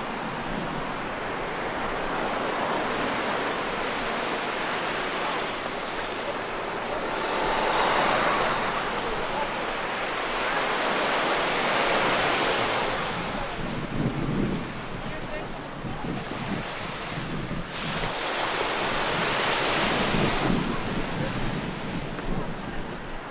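Sea waves breaking and washing up on a beach, the surf swelling and fading every few seconds.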